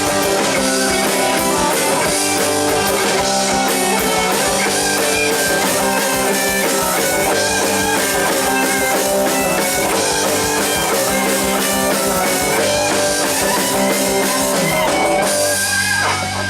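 Rock band playing an instrumental passage without vocals: lead guitar over bass and drum kit with steady cymbal strokes. Near the end the drums stop and a chord is left ringing.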